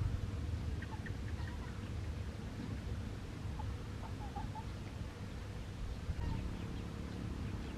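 Poultry calling, a scattering of short, fairly faint calls over a low steady rumble.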